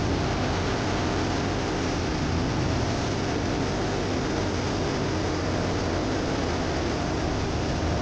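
River water pouring over the concrete lip of a sluice gate and crashing into a churning pool below: a steady, unbroken rush of falling water.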